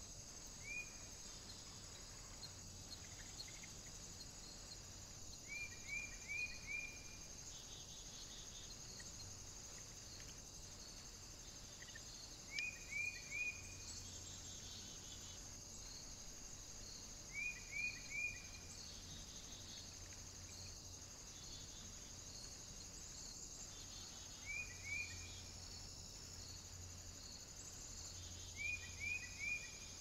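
Small birds calling at a seed feeder: short groups of two to four quick, high, rising chirps every few seconds over a steady high hiss, all raised in pitch by the camera footage being played at four times speed.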